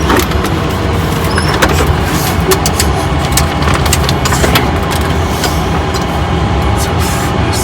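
Loud, steady roar of airliner cockpit noise, with a heavy low rumble and frequent rattling clicks throughout.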